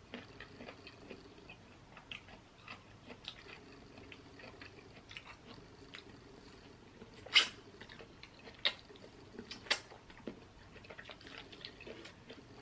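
Close-miked chewing and lip smacking while eating a sauced seafood boil: soft wet clicks throughout, with a louder smack about seven seconds in and two more around nine and ten seconds.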